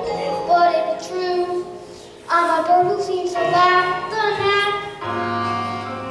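Children singing a number from a school musical over an instrumental accompaniment, ending in a held chord with a low bass note about five seconds in.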